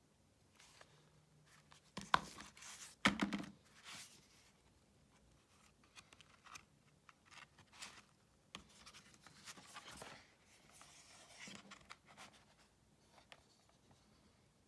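Box set packaging being handled and opened: scattered scrapes, rustles and light clicks, with a few louder knocks about two and three seconds in.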